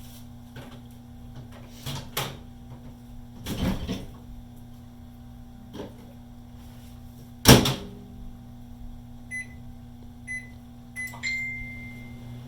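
Microwave oven running with a steady low hum, with several knocks, the loudest about halfway. Near the end it gives three short beeps and then one longer beep.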